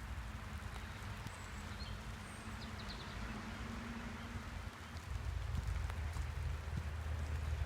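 Light rain falling through woodland, a steady hiss, with the low rumble of nearby highway traffic that swells about five seconds in.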